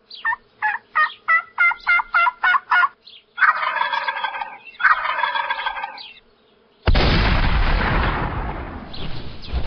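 Turkey calls: a run of about nine quick yelps, then two gobbles. About seven seconds in, a sudden loud bang, the loudest sound here, dies away over a couple of seconds.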